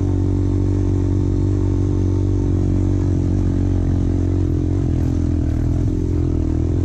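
Motorcycle engine running at a steady pitch, the pitch wavering slightly in the second half.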